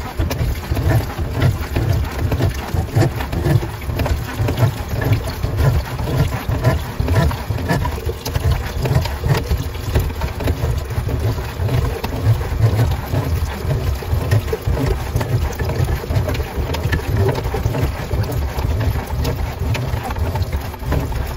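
Electric drum-type drain-cleaning machine running, spinning a 5/16-inch snake cable as it is fed down a kitchen sink drain line to break up a clog, with a low rumble. Water pours out of the drain pipe into a bucket.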